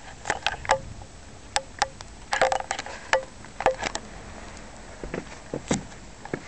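Irregular sharp metallic clicks and knocks, several with a short ring, from steps and handling on a snow-dusted metal spiral staircase; a cluster of them comes about two and a half seconds in, and a last knock near the end.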